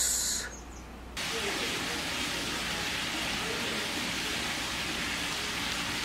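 Steady, even hiss of background noise that starts abruptly about a second in, with faint indistinct sounds beneath it.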